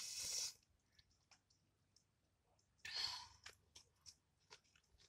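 Quiet mouth sounds of eating: two short breathy rushes of air, one at the start and one about three seconds in, with soft clicks and smacks of chewing scattered between.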